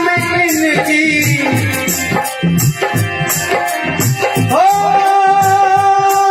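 Tabla played with quick, dense strokes and deep bass beats, under devotional singing with melodic accompaniment. About three-quarters of the way in, the melody settles on a long steady held note.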